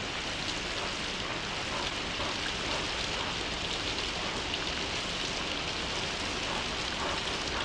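Steady rain ambience: an even, unbroken hiss of falling rain.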